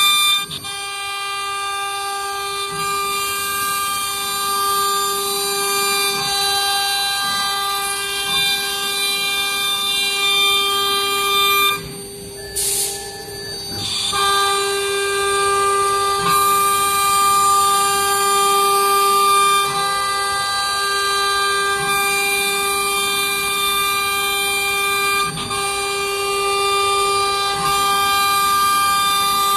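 CNC router spindle whining steadily as its bit cuts cabinet door panel profiles into MDF board. The high part of the whine and the cutting noise drop out for about two seconds about halfway through, then return.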